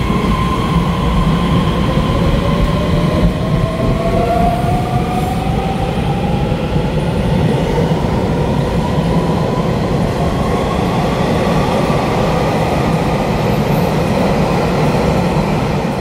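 Taiwan Railway EMU3000 electric multiple unit pulling out and accelerating. A steady electric motor whine rises slowly in pitch over about ten seconds, over a loud rumble of wheels on rails.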